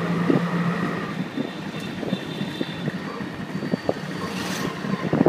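Auto rickshaw engine running as the rickshaw drives along, with road and wind noise and scattered knocks and rattles. Its steady low hum fades about a second in.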